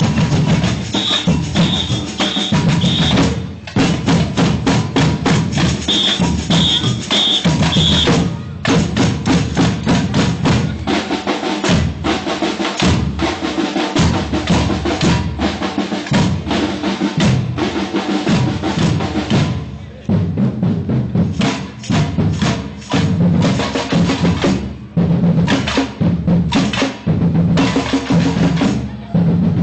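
Samba-reggae percussion band playing a driving rhythm on bass drums and snares. A whistle gives four short blasts about a second in and again about six seconds in, each followed by a brief break in the drumming. The playing thins out about twenty seconds in.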